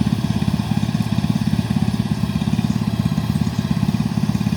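Engine of the shed delivery vehicle running steadily with a low, fast, even throb.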